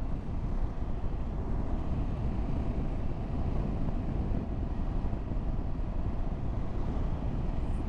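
Triumph Tiger 1200 GT Explorer motorcycle, with its inline three-cylinder engine, running steadily at road speed under a constant rush of wind on the microphone.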